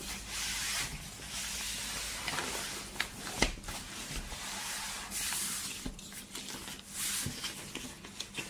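Hands rustling and smoothing the synthetic fabric of a camping mattress as it is unrolled: a crinkly hiss with scattered light clicks and one louder tap about three and a half seconds in.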